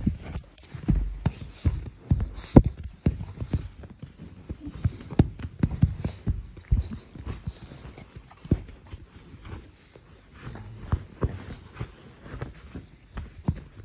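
Cane Corso puppy wriggling and nuzzling close against the microphone: irregular clicks, knocks and low thumps with rubbing of fur between them.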